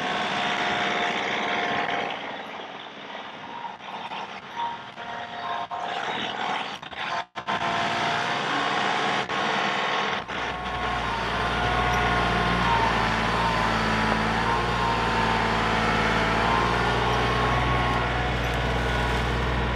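Compact tractor's diesel engine running while it works a front-end loader in soil, with a wavering high whine over the engine. About halfway through the engine's low hum becomes much stronger and steady as the tractor drives on.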